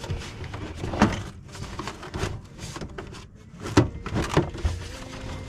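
Irregular knocks, clicks and scrapes of hand work on a truck's wheel-well cover and its retainers, with the sharpest knocks about a second in and around four seconds in.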